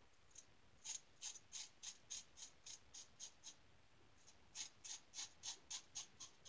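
Star Super Six lather-catcher safety razor with a Gem single-edge blade scraping through lathered stubble in short, quick strokes, about three a second. Two runs of strokes, with a pause of about a second between them.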